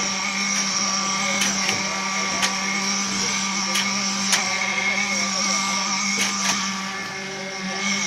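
Concrete mixer pump running steadily with a constant hum as concrete is pushed through the delivery hose onto the slab, with sharp knocks now and then.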